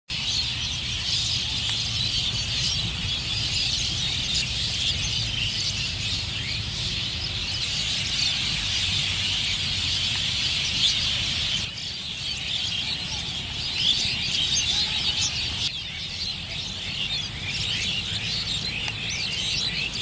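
A large flock of birds chirping and calling all at once: a dense, continuous chatter of many overlapping voices, with a low rumble underneath.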